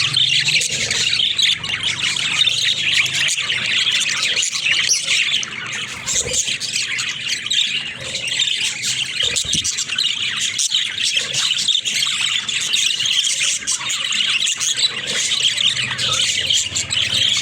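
Budgerigars chattering, with a steady stream of quick chirps, warbles and squawks.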